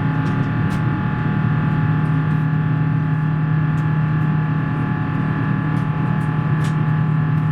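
Rolls-Royce Trent XWB turbofan engines of an Airbus A350 heard from inside the cabin beside the wing: a steady drone with a low hum and several steady whining tones above it, with a few faint ticks.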